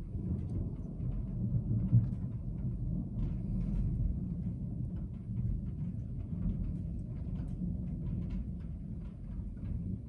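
Thunder rumbling long and low, starting suddenly and rolling on, loudest about two seconds in, heard from inside a car with faint raindrops ticking on the roof and glass.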